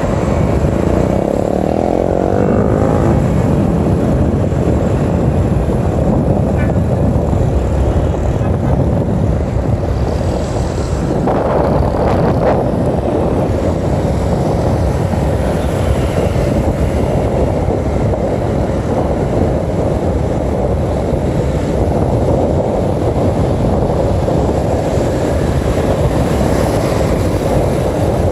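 Riding a motorbike along an open road: a steady, loud rush of wind and engine noise.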